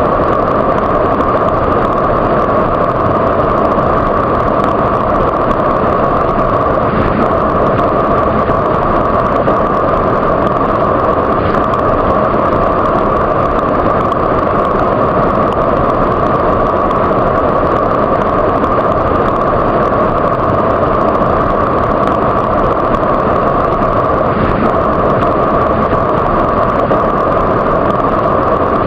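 Waterfall: a loud, steady, even rush of falling water that does not change.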